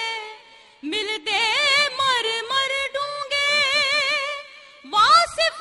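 A woman singing a Punjabi Sufi kalam, drawing out long wavering notes without words, with a short break just under a second in and another near the end.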